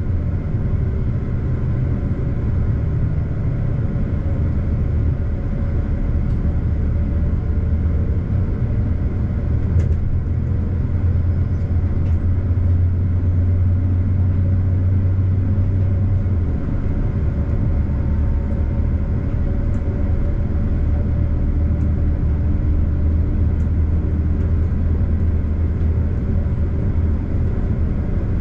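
Diesel multiple unit running at a steady 80 km/h, heard from the driver's cab: a low engine drone over the rumble of wheels on the rails. The drone changes note about sixteen seconds in.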